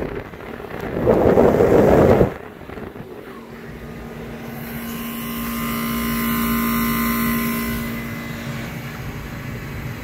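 A home-built 2-ton R22 air-conditioning unit running. A rush of blower supply air hits the microphone for about a second and a half, then the unit's steady hum, with several even tones and a hiss, swells through the middle and eases off near the end.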